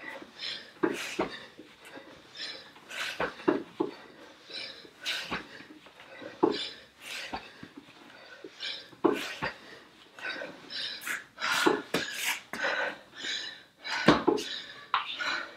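A woman breathing hard during sit-ups, with short forceful exhales about once a second.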